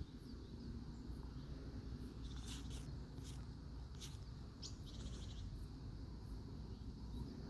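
Birds chirping: a handful of short high chirps and one fast trill in the middle, over a steady low rumble of wind or handling noise.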